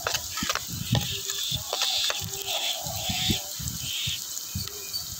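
Chopped onions and green chillies sizzling in hot oil in a clay pot, frying toward golden brown, with a steel spatula stirring and knocking against the pot. The sizzle is a steady hiss that swells every half second or so, with scattered low knocks from the stirring.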